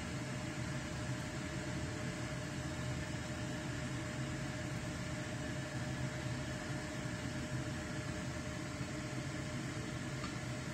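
Steady low hum with an even hiss and a faint higher whine, like a running appliance or fan.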